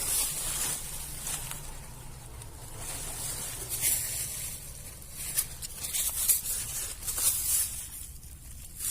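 Outdoor rustling and handling noise: a few soft clicks and rustles spread through, over a steady high hiss.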